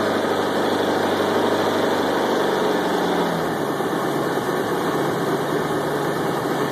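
Mercruiser 888 marine Ford 5.0 V8, newly converted to Ford EEC-IV fuel injection, running steadily on its first start-up, its note shifting slightly about halfway through.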